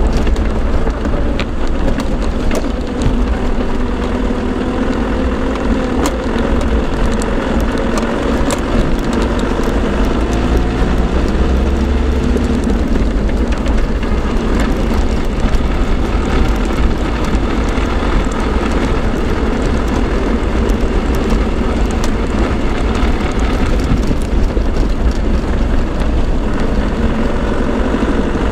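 Land Rover LT230 transfer case whining while the vehicle drives, heard over steady engine and road rumble with the sound proofing fitted. The whine's pitch drifts a little early on, then holds, with small rattles and ticks throughout.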